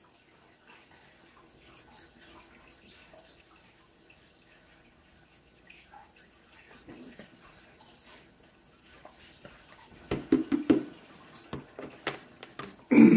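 A person gulping water from a plastic gallon jug, the swallowing faint and steady for most of the time. In the last few seconds come louder, sudden sounds of the jug being lowered and handled.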